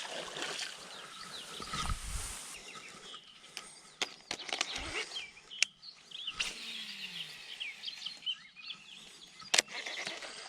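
Outdoor bird chorus of many short chirps, with several sharp clicks and a couple of low thumps; the loudest click comes near the end.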